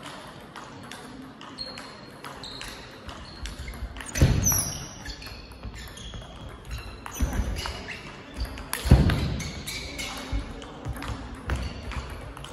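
Table tennis rally: the ball ticking sharply off the bats and the table in a quick, irregular series of clicks, with two heavier low thuds about four and nine seconds in.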